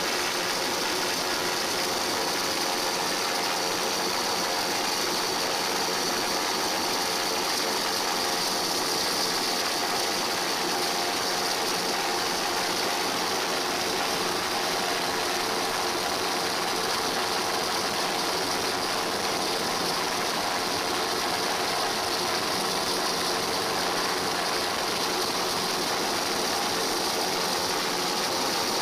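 Steady engine noise heard on board the aircraft filming from above: a constant, unchanging hum with a strong hiss.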